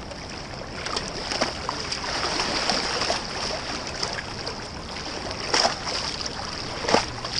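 A large wels catfish thrashing in shallow river water at the bank, churning and splashing steadily, with two sharper splashes in the second half.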